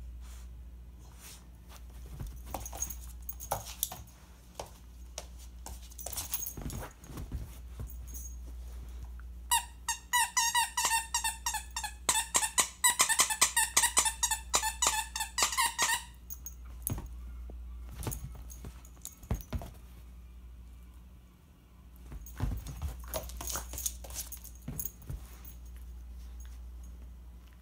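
Squeaker inside a small plush unicorn toy squeaked over and over as a German Pinscher puppy chews it: a quick run of high squeaks, about four a second, for some six seconds midway. Scattered clicks and rustles of the dog handling her toys come before and after.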